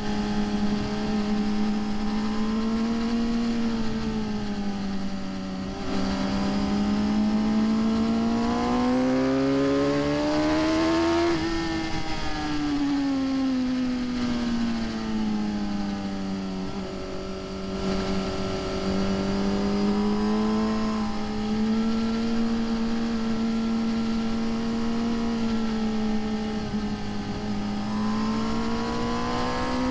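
Sport motorcycle engine heard from onboard while lapping a race track. It holds a steady pitch, climbs for several seconds, then falls back over the next few seconds and settles again under a constant rushing noise.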